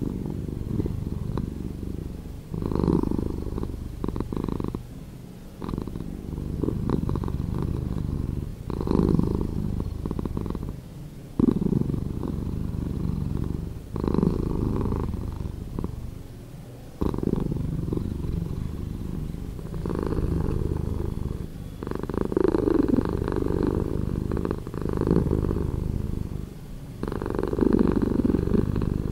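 Domestic cat purring, slowed down so it sounds deeper. The purr swells and eases in a steady cycle every two to three seconds with the cat's breathing.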